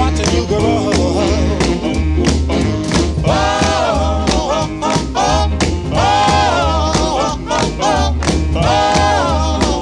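Background music with a steady bass beat and a singing voice, upbeat and swing-like.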